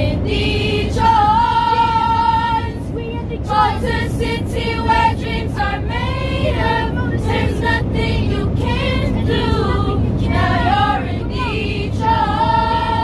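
Youth choir of girls' voices singing unaccompanied, with long held notes and changing phrases, over the steady low drone of an airliner cabin.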